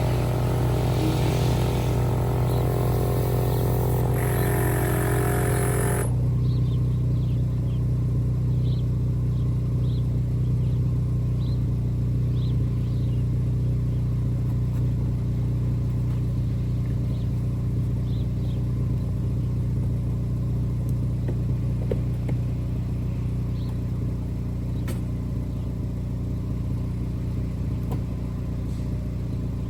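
Acura TSX's engine running at a steady speed, a constant low hum. For about the first six seconds a brighter hiss sits on top of it and then cuts off suddenly.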